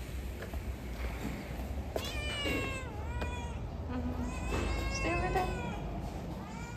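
Tabby cat meowing several times, the first a long call starting about two seconds in.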